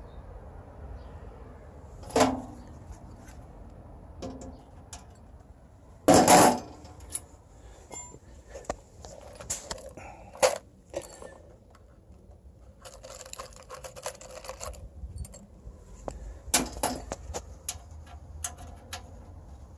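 Scattered metal clinks, knocks and rattles from small steel hardware and the stainless sheet-metal stove box being handled. The loudest knock comes about six seconds in, and there is a denser rattle a few seconds later.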